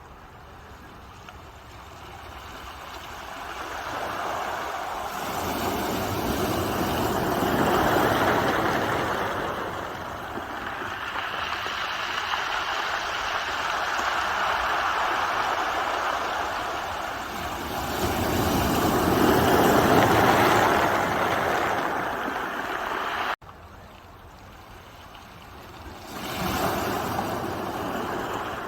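Ocean surf: waves rushing in and washing back in long swells, two big surges followed by a smaller one. The sound drops off abruptly about two-thirds through before the next wave comes in.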